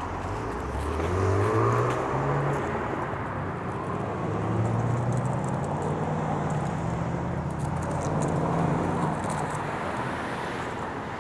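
A motor vehicle's engine running and accelerating, its pitch rising about a second in and again from about four seconds in.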